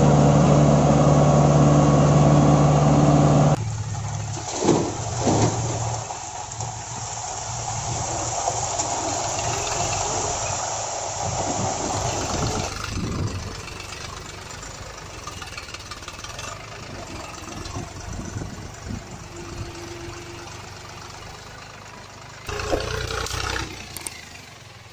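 A loud, steady truck engine sound for the first three seconds or so. Then the scraping and rattling of sand sliding out of a plastic toy dump truck's tipped bed, with scattered knocks from the toy being handled. A short engine burst comes back near the end.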